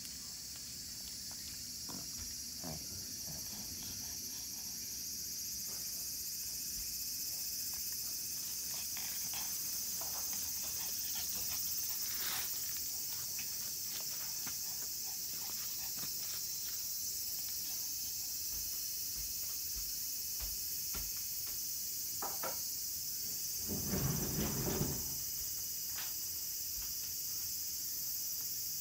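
A steady high-pitched chorus of insects, with faint scattered ticks. About twenty-four seconds in comes a brief louder burst of noise.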